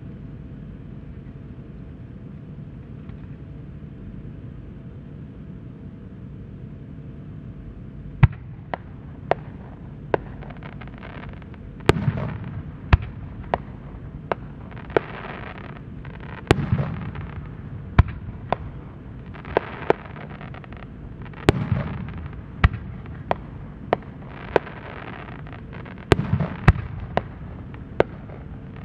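Aerial firework shells bursting: after several seconds of steady background noise, sharp booming reports start about eight seconds in and come roughly once a second, with longer rushing swells of noise between some of them.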